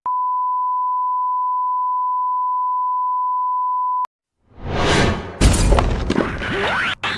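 A steady electronic beep at one pitch, about 1 kHz, held for about four seconds and cut off abruptly. After a brief gap comes a loud jumble of crashes, whooshes and rising and falling sweeps, like action sound effects.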